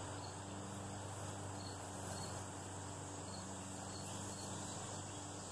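Faint, steady chorus of insects chirring, with a low steady hum beneath it.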